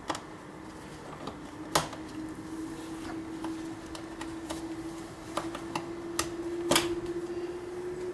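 Rubber intake air hose being twisted and worked off a throttle body by gloved hands: scattered small clicks and creaks, with two louder clicks about two seconds in and about seven seconds in, over a steady faint hum.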